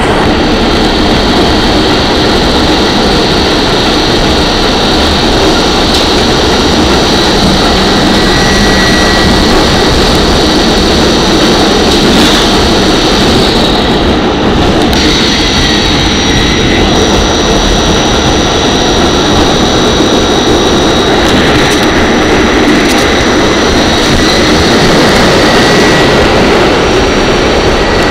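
R44 subway car running at speed, heard from inside the car: a loud steady rumble and roar of wheels on rail, with high steady whining tones that fade and return.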